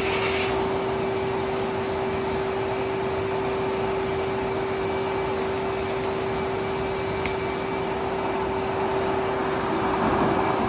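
Kenmore Whisper Tone canister vacuum running steadily: a constant motor hum over rushing airflow, with one brief click about seven seconds in.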